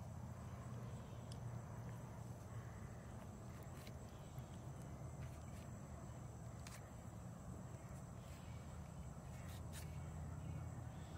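Faint outdoor ambience: a steady, high-pitched drone of insects over a low rumble, with a few faint clicks scattered through.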